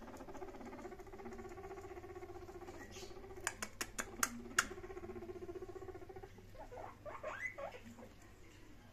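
Guinea pig rumbling: a low, rapidly pulsing purr that runs steadily and stops about two-thirds of the way through. Several sharp clicks come about halfway through, and a burst of short rising squeaks follows near the end.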